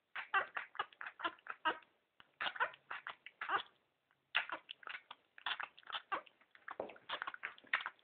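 One-week-old Labrador puppy suckling noisily at a feeding bottle's teat: quick runs of wet sucking and smacking clicks, about five a second, broken by short pauses about two and four seconds in.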